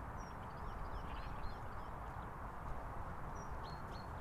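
Faint sounds of brown rats eating seeds under a steady outdoor hiss. Small birds give short high chirps, a cluster about a second in and a few more near the end.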